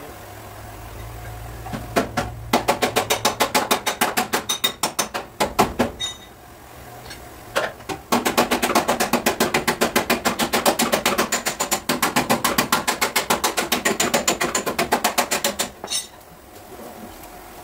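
Rapid hand-hammer taps on car body sheet metal, about seven strikes a second, in two runs of a few seconds and then about eight seconds with a short pause between, typical of panel beating or tapping down a dent.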